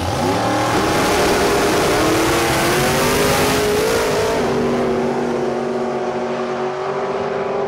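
Two outlaw-class drag cars launching off the line side by side and accelerating hard down the strip, their engines rising steeply in pitch. About four and a half seconds in, the engine note drops and levels into a steady high tone as the cars pull away.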